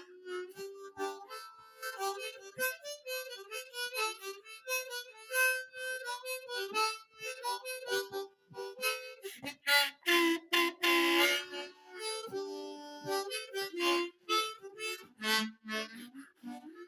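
Hohner Marine Band diatonic harmonica, its cover plates fastened with screws in place of the original nails, played in a run of short notes and chords. A louder, breathy held chord comes about ten seconds in.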